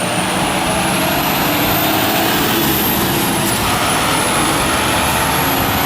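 Cement mixer truck engine running steadily, with a thin high whine that drifts up and then down in pitch.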